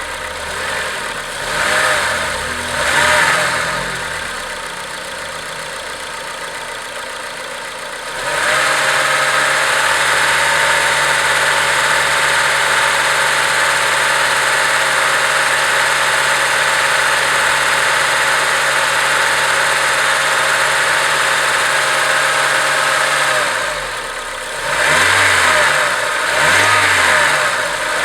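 Acura RSX Type-S 2.0-litre four-cylinder engine blipped a few times, settling to idle, then held at a steady higher speed for about fifteen seconds before dropping back and being blipped again near the end.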